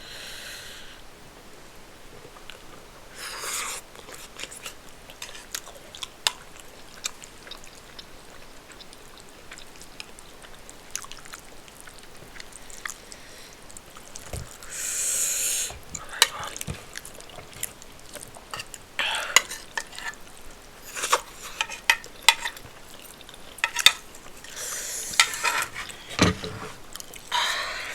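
Utensil clicking and scraping against a dish while rice and stew are stirred and scooped up, with many small sharp ticks and a few short breathy hisses.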